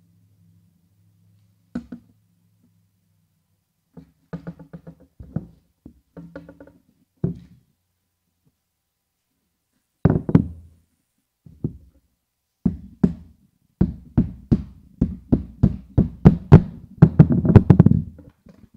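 Claw hammer driving a nail through a plastic pinwheel into the end of a wooden dowel. A few light taps come first, then a long run of sharp blows at about three or four a second, quickening near the end.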